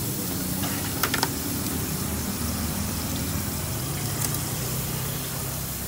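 Pork belly slices sizzling steadily on a round tabletop grill plate, with a few sharp metal clicks of tongs on the meat and grill about a second in and again just after four seconds.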